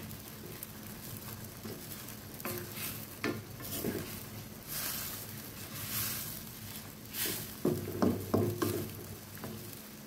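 Wooden spatula stirring and scraping through a bubbling seafood curry in a non-stick wok, with hissing swells as the liquid is turned over. A few louder knocks and scrapes about eight seconds in.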